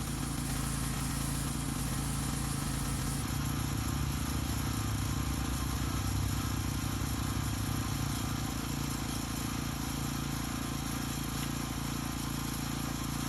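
Small gas engine of a pressure washer running steadily, with a hiss of water spray over it.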